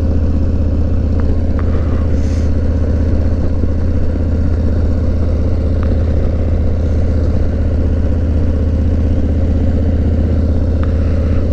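Harley-Davidson motorcycle's V-twin engine running at a steady highway cruise, with constant wind noise over it.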